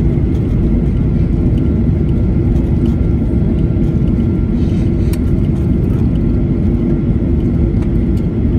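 Cabin noise of a flydubai Boeing 737 rolling along the runway after landing: a loud, steady rumble of engines and wheels with a constant hum.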